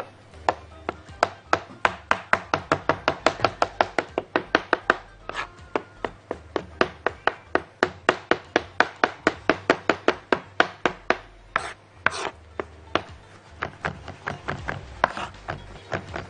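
Knife chopping hard-boiled egg on a wooden cutting board: quick, even strokes, about five a second, with two short pauses.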